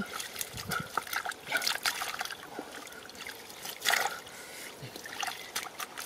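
Hands groping through shallow muddy water and soft mud, making irregular small splashes, sloshes and squelches, with a louder splash about four seconds in.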